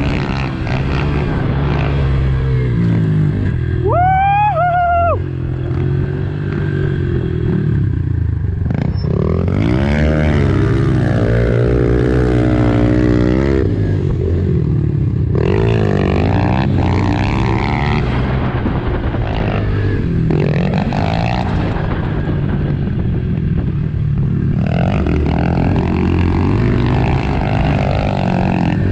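Honda CRF110 pit bike's small single-cylinder four-stroke engine being ridden around a dirt track, the revs rising and falling over and over as the rider throttles, shifts and lets off. A brief high wavering sound cuts in about four seconds in.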